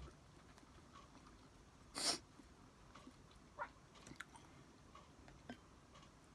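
A person chewing and biting food close to the microphone, quiet mouth sounds with a few faint clicks and one short, louder crunchy sound about two seconds in.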